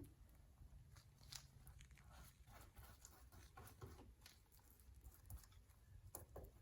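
Near silence: a low steady hum with faint scattered ticks and rustles of hand work.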